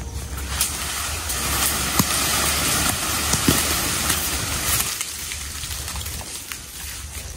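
Dry leaves rustling and crackling, with scattered sharp crackles, over a low wind rumble on the microphone. The rustling is fuller for the first few seconds and thins out near the end.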